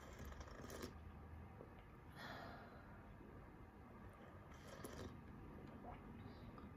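Near silence: room tone with a few faint, brief rustles.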